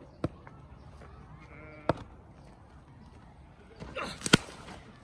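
A cricket bat striking the ball with one sharp crack about four seconds in, the loudest sound, just after a short call. Earlier there are two sharp knocks and, near two seconds, a short animal bleat.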